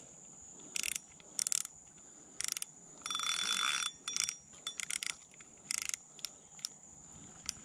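A small metal bell jingling in a series of short shakes, the longest about three seconds in, over a steady high-pitched whine.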